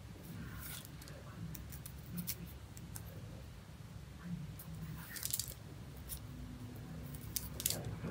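A few short, faint scrapes and clicks as a comb is pressed and worked along the glued lace of a lace-front wig at the hairline, over a low steady hum.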